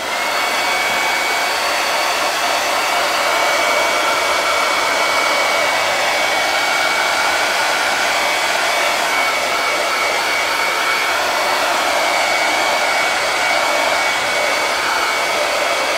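Handheld hot-air blower switched on and running steadily, a constant rush of air with a thin high motor whine, drying freshly brushed-on paint.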